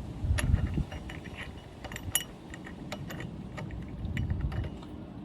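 Scattered light metallic clinks and taps of scooter CVT drive-pulley parts being handled during disassembly, with a few dull knocks in the first second.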